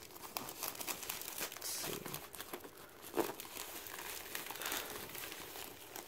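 Plastic postal mailer crinkling and rustling as it is handled and pulled open by hand, with irregular crackles of the plastic tearing, the sharpest about three seconds in.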